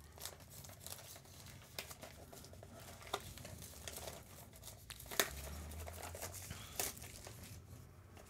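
Clear plastic shrink-wrap being picked at, torn open and peeled off a card-game prerelease box, crinkling and crackling irregularly, with a couple of louder snaps about five and seven seconds in.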